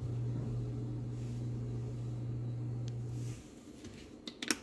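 A steady low hum that cuts off abruptly about three and a half seconds in, followed by a few light clicks near the end.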